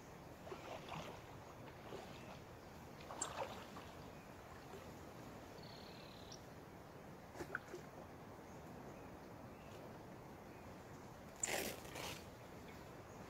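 Paddle strokes splashing faintly as a packraft is paddled through calm water, with a few separate splashes and a louder splash near the end as the raft reaches the shore.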